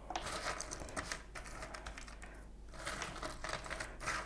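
Cardboard jigsaw puzzle pieces clicking and rustling as a hand rummages through them in a sorting tray, with a short lull a little past halfway.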